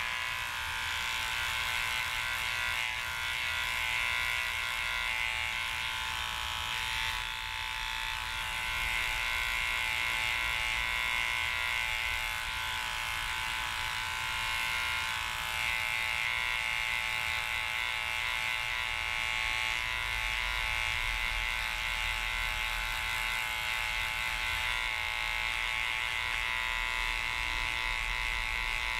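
Small cordless electric pet clipper switching on and running with a steady high-pitched buzz as it trims the fur between a dachshund's paw pads.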